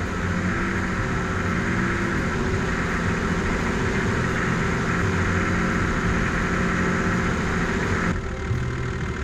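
Four-wheel drive running along a dirt track: a steady engine drone with rumble and hiss. The higher hiss cuts out suddenly about eight seconds in, leaving the lower drone.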